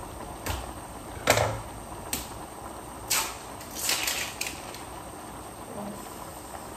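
Kitchen clatter: about six short clicks and knocks, the loudest a little over a second in, over a steady hiss.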